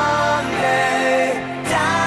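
A song playing, with long held notes that change pitch about every second.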